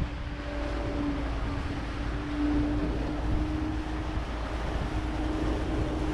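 Boat engine running steadily under way, with water wash and wind rumble on the microphone.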